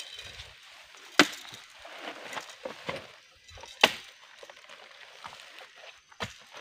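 Three sharp, chopping knocks about two and a half seconds apart, from oil palm fruit bunches being handled with a spiked pole and loaded, over faint rustling.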